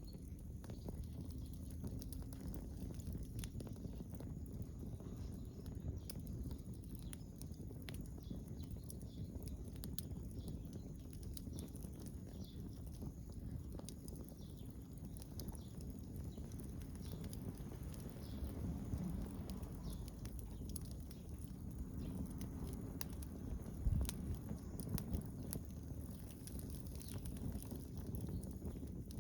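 Wood fire crackling with scattered sharp pops over a low, steady rumble, with one dull thump late on.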